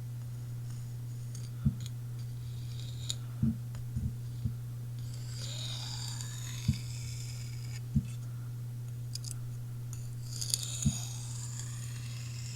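Chris Reeve Sebenza's Magnacut steel blade drawn across a sharpening stone in two long, slow scraping strokes to form a micro bevel. There are a few light knocks between them and a steady low hum throughout.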